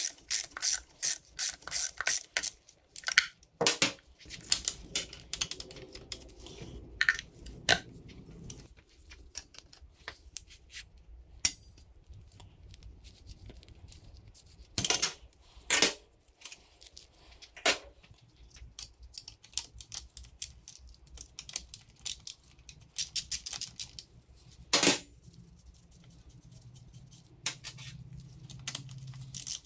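Socket ratchet clicking in quick runs as bolts are backed out, with scattered single clicks and clinks of metal tools and parts being handled.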